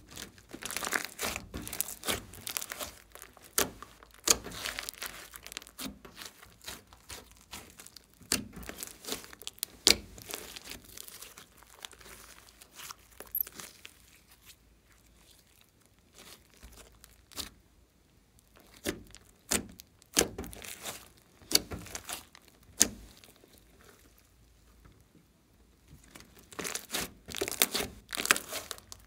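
Hands stretching, pulling apart and squeezing thick slime: sticky crackling and popping with tearing sounds as strands pull apart. The crackles come in busy clusters, with quieter spells in the middle.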